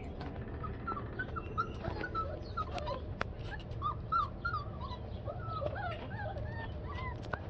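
Four-week-old Labrador retriever puppies whimpering, a stream of short high-pitched squeaky cries that rise and fall, one after another, over a low steady rumble.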